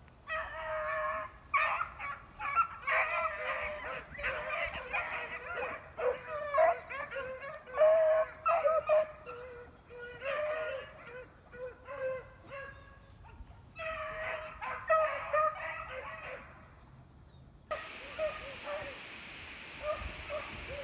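A pack of beagles giving tongue on a rabbit's trail: many overlapping high bawls and chop barks, with the hounds in full cry. Near the end the barking grows fainter under a steady hiss.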